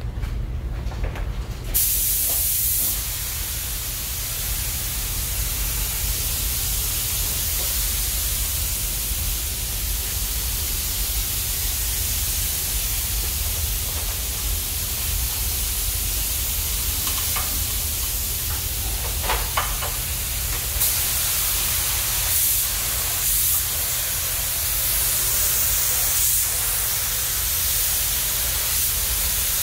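Gravity-feed compressed-air paint spray gun hissing steadily as it sprays paint, starting about two seconds in and louder in stretches about two-thirds through. A steady low hum runs underneath.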